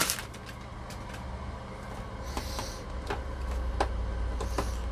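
Light plastic clicks and taps from handling a Hasbro Ecto-1 toy car as its hinged rear door is opened, with a sharp click at the start and a few brief rustles. A low hum sits underneath and grows louder about three seconds in.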